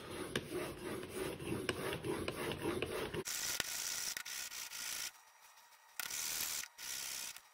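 Steel Iron Will single-bevel broadhead stroked back and forth over oiled 1500-grit abrasive paper on a glass plate: a scratchy rubbing of the blade polishing out its factory machine marks. The strokes stop briefly about five seconds in, then go on.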